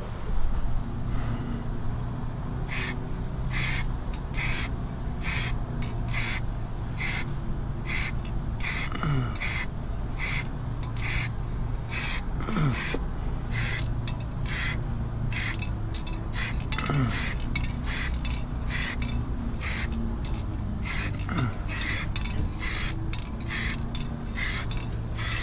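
Paint sprayed in short hissing bursts, about one or two a second, over a steady low hum.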